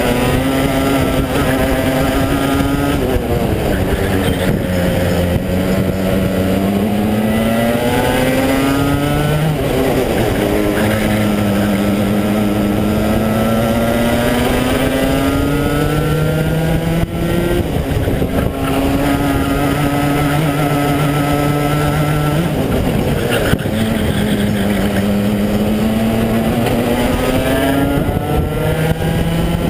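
Rotax two-stroke racing kart engine heard onboard at racing speed: the revs climb steadily along each straight, then drop sharply when the throttle is lifted for a corner, about five times over.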